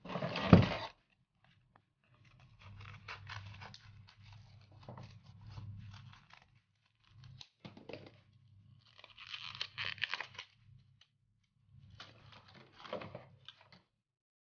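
A memory card's plastic-and-card retail blister pack being torn and crinkled open by hand, in several spells of crackling and tearing with short pauses between them, with a sharp crack about half a second in.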